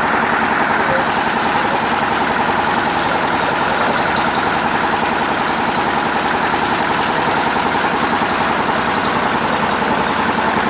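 A concrete paving block machine running steadily, with a very fast, even vibration.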